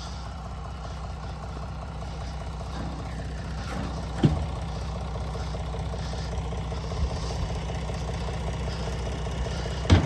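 Vehicle engine running steadily at low revs, slowly getting louder, with a sharp knock about four seconds in and another near the end.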